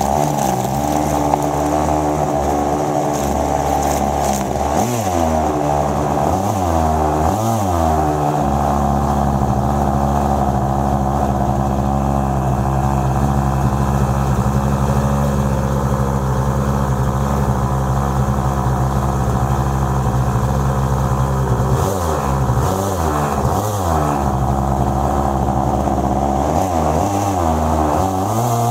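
OS 120 nitro glow engine driving an RC airboat's air propeller, running loud and steady at high throttle through the middle stretch. Its pitch dips and climbs back several times in the first few seconds and again in the last several seconds, and rises again at the very end.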